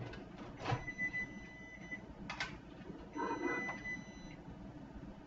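Microwave oven's hum cuts off as its heating cycle ends, followed by two long high beeps about two seconds apart signalling it has finished. A few sharp clicks fall between the beeps.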